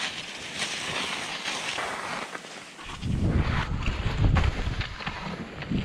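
Skis hissing through powder snow. About three seconds in, wind starts buffeting the microphone with a heavy low rumble.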